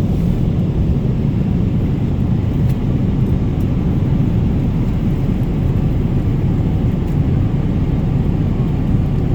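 Steady low engine rumble of a vehicle under way, even and unchanging throughout, with no rises or falls in pitch.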